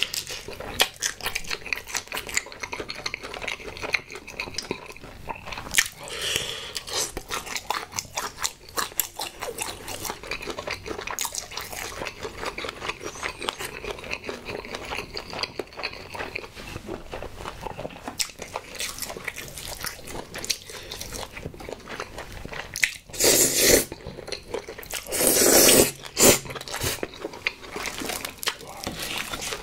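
Close-miked eating of crispy fried chicken drumsticks: crackling bites through the fried coating and wet chewing, with many small crunches throughout. About three-quarters of the way through come two louder rushing noises, each a second or so long.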